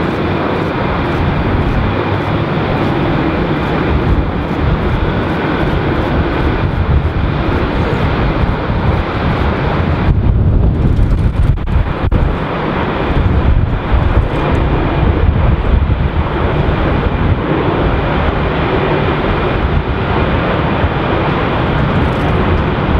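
Airbus A330-300 airliner's jet engines rumbling steadily as it touches down and rolls out along the runway, getting louder about ten seconds in, under gusty wind on the microphone.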